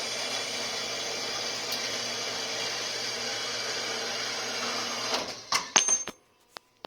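A small workshop machine running steadily with a hiss and a low hum, then stopping about five seconds in, followed by a few sharp clicks and knocks.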